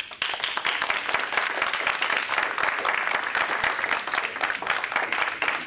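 Audience applauding, a dense and steady clapping that starts just after a speech ends.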